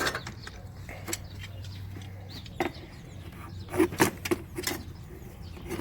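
Hand tools clinking and tapping against metal parts in a diesel pickup's engine bay: a few scattered sharp clicks, with a quick cluster of them about four seconds in, over a steady low hum.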